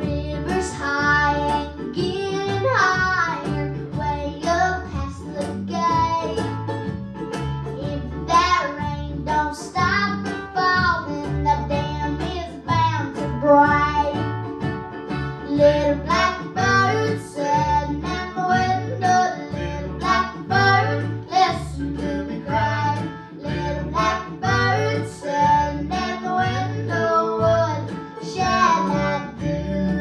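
Live acoustic string band playing a country-style song: mandolin, plucked upright bass, a small-bodied guitar and a hand-played drum keeping a steady beat.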